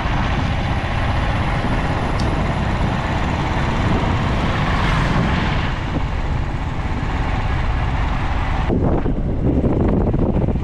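Wind rushing over the microphone of a moving Royal Enfield Thunderbird motorcycle, with the engine running underneath. The sound changes abruptly about nine seconds in, where the higher hiss drops away.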